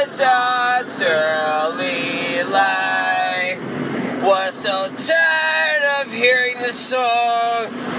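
A voice singing a string of long held notes that slide and waver in pitch, over steady background noise.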